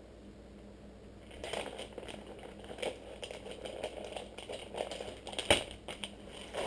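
Crinkling and rustling of a plastic soft-bait package being handled, starting about a second and a half in, with small clicks and one sharper click about halfway through.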